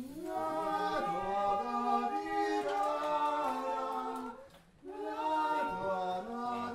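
A roomful of people singing a melody together without instruments. They sing two phrases, with a short pause for breath about four and a half seconds in.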